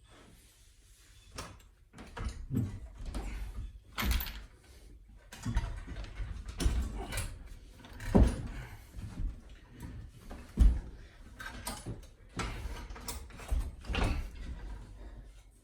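Irregular knocks, clanks and scraping of metal parts and hand tools being handled during a motorcycle teardown, with two sharper knocks past the middle.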